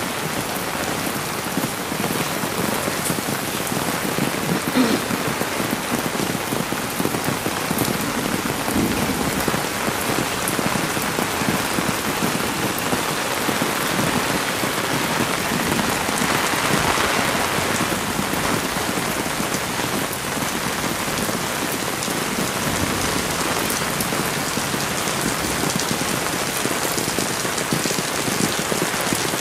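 Heavy rain pouring steadily, a dense, even patter of drops, with a single louder tick about five seconds in.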